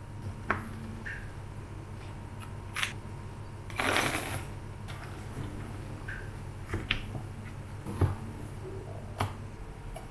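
Kitchen handling sounds: a series of short, sharp taps and clinks, about six spread out irregularly, with a brief rustling scrape about four seconds in, over a steady low hum.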